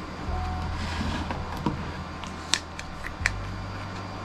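A black phone case being fitted onto an iPhone 7 Plus, with a few sharp clicks and taps as it goes on, over soft background music with a low steady bass.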